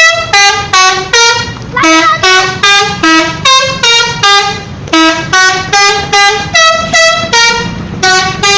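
Indonesian 'telolet' bus horn, a multi-tone musical air horn, playing a long tune of short notes at about three a second, the pitch jumping from note to note without a break.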